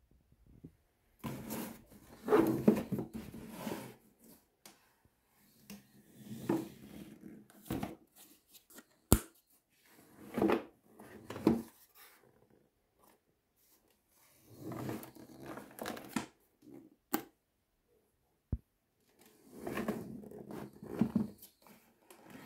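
Cardboard shipping box being handled and turned over on a table: several bursts of cardboard rubbing and scraping, with two sharp knocks in the middle.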